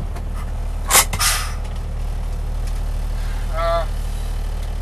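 GMC 6000 cab-over truck engine running steadily, heard from inside the cab. About a second in there is a sharp clack followed by a short hiss, and near three-quarters of the way through a brief high tone.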